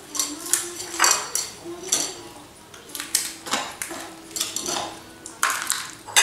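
Plates and dishes clinking and clattering in a string of short, irregular clinks while food is eaten by hand from them, the loudest near the end.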